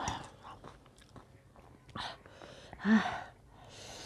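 Close-up eating sounds of a person chewing and slurping buff chowmein noodles, with a short, louder burst about three seconds in.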